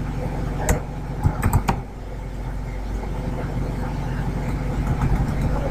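Computer keyboard keystrokes: a single click, then a quick run of about four clicks about a second and a half in, over a steady low hum.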